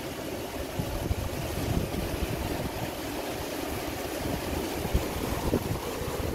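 Rushing water of a fast mountain stream pouring over rocks, a steady noise, with irregular low rumbling from the water and wind on the microphone.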